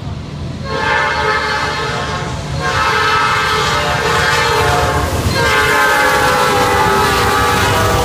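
A CN freight train's diesel locomotive air horn sounds three long blasts as the train approaches and passes close by, the pitch dropping slightly on the third. The locomotives' engines rumble low underneath.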